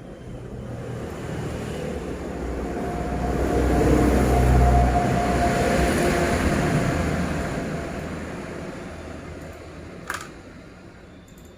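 A vehicle passing by, growing louder for about five seconds and then fading away, with a single sharp click near the end.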